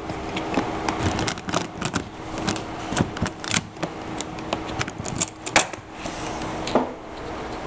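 Irregular clicks, taps and light clatter of equipment being handled, over a faint steady hum that stops about two-thirds of the way through.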